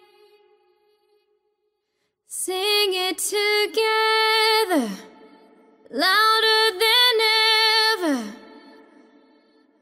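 Music: a single melodic line of held notes in two phrases, each ending in a falling slide, after about two seconds of near silence.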